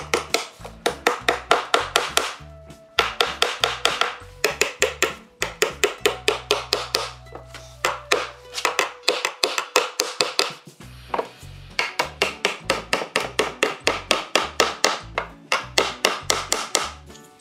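Background music with a quick, even beat and a bass line, pausing briefly a few times.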